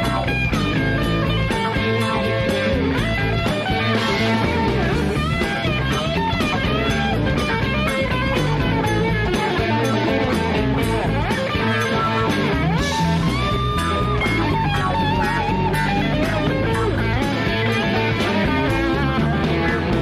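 Blues-rock band playing an instrumental stretch, led by electric guitar lines full of string bends, with no singing.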